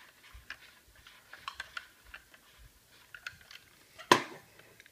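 Small plastic clicks and taps from an LED ring light being handled and swivelled on its ball-head mount, with one sharper, louder clack about four seconds in.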